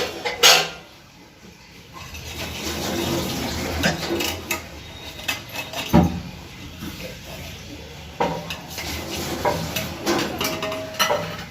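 Dishes and metal utensils clinking and clattering, with scattered knocks, the sharpest about six seconds in.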